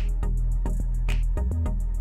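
Background music with a steady beat and deep bass notes.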